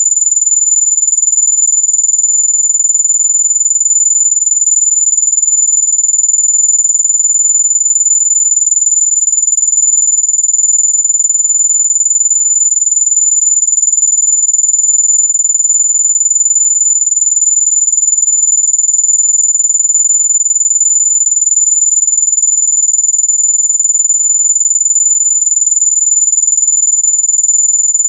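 Loud, continuous, very high-pitched electronic tone, one pure pitch held perfectly steady: a synthesized mosquito-repellent tone.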